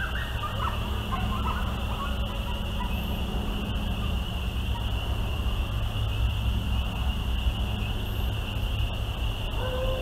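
Coyote pack yipping and calling, dying away within the first couple of seconds, over a steady high insect drone and a low field rumble. Near the end a single long, level howl begins.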